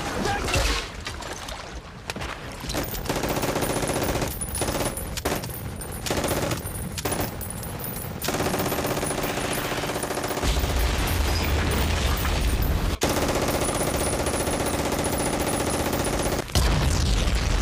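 War-film battle sound of machine-gun fire: rapid bursts broken by short pauses, then heavier, sustained firing over a deep rumble from about ten seconds in, with abrupt changes where the shots cut.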